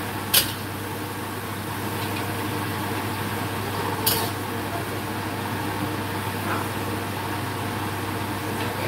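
Two sharp clinks of kitchenware, about half a second in and about four seconds in, over a steady low hum.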